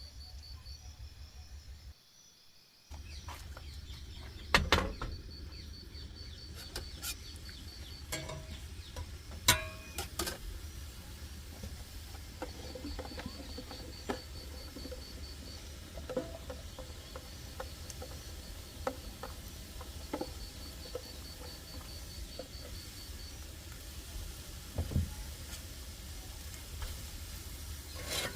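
Camp cooking: scattered knocks and clinks of utensils and cookware over a steady low hum, with a repeated high-pitched chirping in the background.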